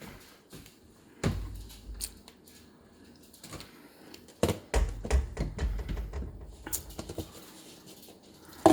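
Someone rummaging for plastic food containers in a kitchen cupboard: a string of knocks, clicks and clatters, with a couple of dull thuds.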